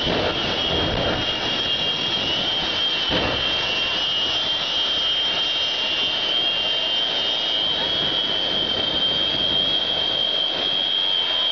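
Jet engine of a jet-powered semi truck running: a steady roar with a high turbine whine, with louder surges near the start and about three seconds in.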